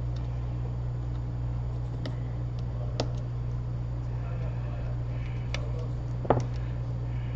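A steady low electrical hum with a few small, sharp clicks and taps scattered through it, the loudest about six seconds in.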